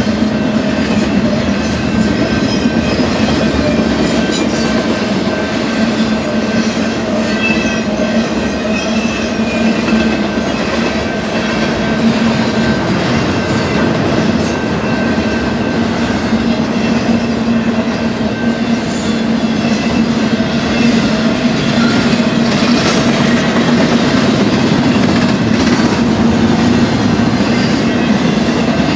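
BNSF intermodal freight train's container and trailer cars rolling past at a grade crossing: a steady loud rumble of steel wheels on rail, with irregular clicks and thin high wheel squeals coming and going.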